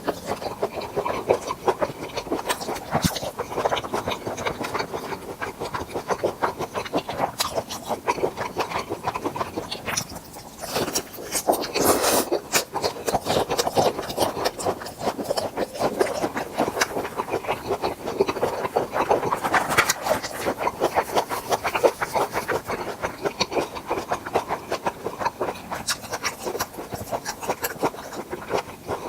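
Close-miked chewing of grilled tiger prawns: a steady run of small crunching and wet mouth clicks with no pause.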